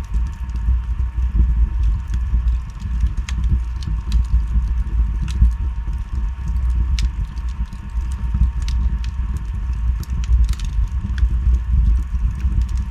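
Wood fire burning in a fireplace: a steady low rumble of flame with scattered sharp crackles and pops from the logs, a few seconds apart.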